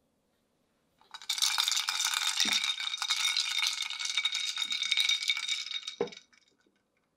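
Ice cubes rattling and clinking against the glass of a Hario Olive coffee server as it is swirled, quick-chilling freshly brewed hot coffee. The rapid clinking lasts about five seconds, with a dull knock about two and a half seconds in and another as it stops.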